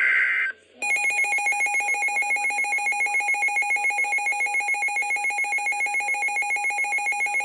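A brief burst of weather-alert data tones, then, after a short gap, a NOAA weather radio's electronic alert alarm sounding a rapid warbling tone that pulses about six to seven times a second, signalling an incoming severe weather warning.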